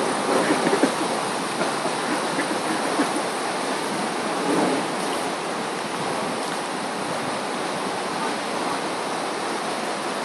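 Steady rush of floodwater from the overflowing Passaic River, an even hiss of moving water.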